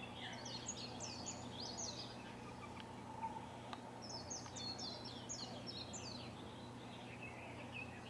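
A songbird sings two quick phrases of rapid, high, downward-sliding notes: one in the first two seconds and one from about four to six and a half seconds in, with softer notes near the end. A steady low hum of background noise runs underneath.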